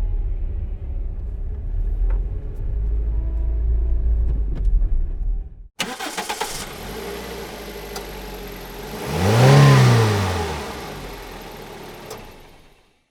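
Car sound effects: first a steady low engine rumble. After a short silent cut, a car engine cranks and starts, gives one rev that rises and falls in pitch, then settles and fades out.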